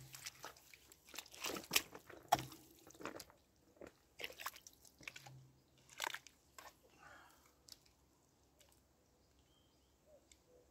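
Irregular crunching and rustling handling noise close to the microphone, densest in the first seven seconds, then fading to a faint outdoor background.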